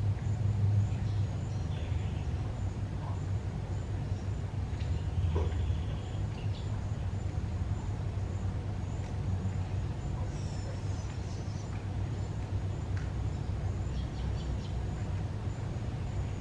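Steady low rumble of road traffic on the concrete bridge overhead, with a few faint, short high chirps scattered through it.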